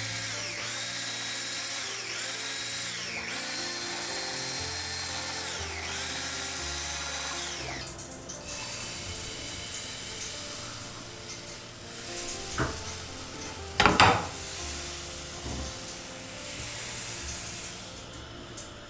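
Electric sewing machine motor running in bursts, speeding up, holding and slowing down several times, then stitching steadily. Near the end there are a couple of sharp clacks, the loudest about two thirds of the way in.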